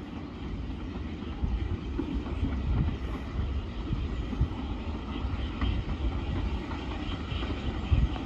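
SR U Class steam locomotive approaching in the distance: a low rumble with a few irregular thumps.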